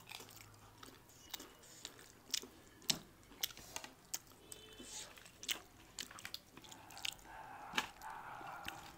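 People chewing and biting food close to the microphone: wet mouth sounds with scattered sharp crunches and smacks.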